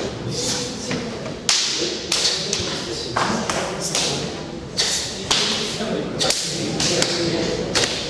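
Irregular sharp slaps and thuds of bare hands and forearms striking arms and bodies in karate partner conditioning drills, many pairs at once in a reverberant hall, over a murmur of voices.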